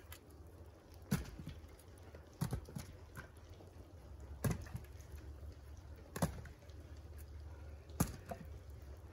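Split pieces of firewood knocking against wood as they are picked up and tossed aside: five separate knocks, a second or two apart.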